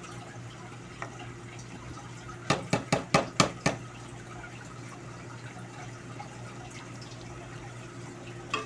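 Glutinous rice in coconut milk simmering at a boil in a pan, under a steady low hum. Around the middle, a ladle knocks against the pan about seven times in quick succession.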